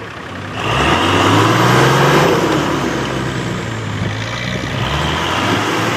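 Off-road 4x4 engine revving hard under load while the vehicle is hauled up a steep sand bank on a tow strap. The revs jump about half a second in and are held high, easing a little after a couple of seconds.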